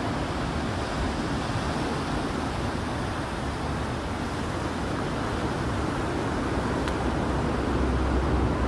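Steady outdoor noise of surf and passing highway traffic, with a deep rumble that grows louder near the end.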